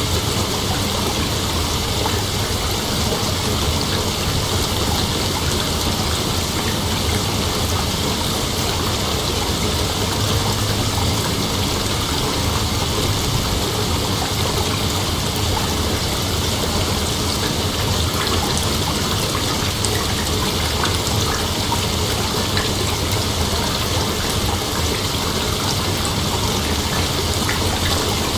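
Night insects, crickets and the like, in a dense, steady chorus that blends into an even hiss, without pause.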